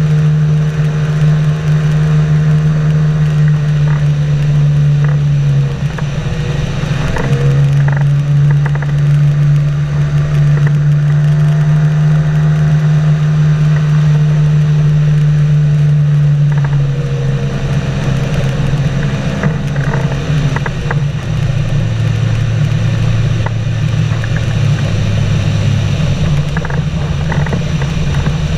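Engine and propeller of a flying inflatable boat running steadily, the note dipping about six seconds in and picking up again, then changing pitch a couple of times later on.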